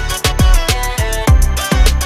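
Background music with a steady beat: a deep kick drum about every half second, hi-hat ticks and a melody over it.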